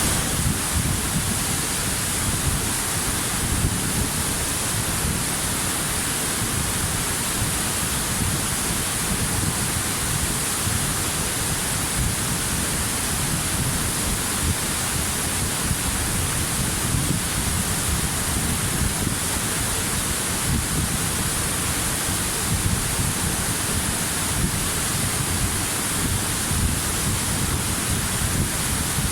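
Waterfall: a steady, unbroken rush of falling water, with a deep rumble underneath and a bright hiss on top.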